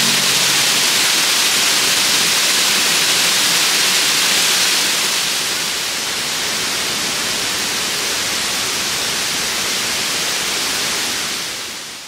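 Waterfall pouring into a plunge pool: a steady rush of water, a little quieter about halfway through and fading out at the end.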